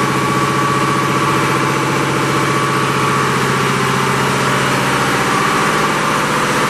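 Ship's engine-room machinery running: a loud, steady drone with an even high whine on top.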